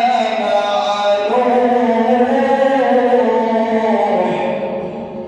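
A man reciting the Quran in melodic tajweed style, drawing out long sung notes that fade away near the end.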